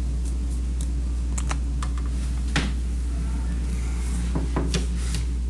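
A steady low hum with a few short, light clicks scattered through it, the sharpest about two and a half seconds in.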